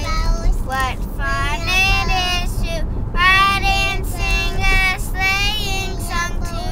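A child singing in a high voice, with long held notes that slide up and down, over a steady low background rumble.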